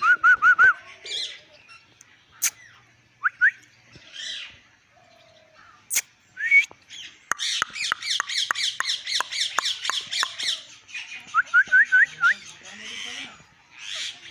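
Pet parrot squawking and chirping: short rising chirps, then about halfway through a fast run of harsh repeated calls, several a second, for about three seconds, followed by more rising chirps.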